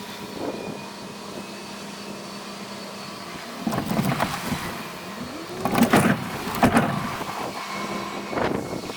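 Dump trailer being emptied: a steady motor hum, then from about halfway through a series of loud knocks and rattles as the load shifts and falls out.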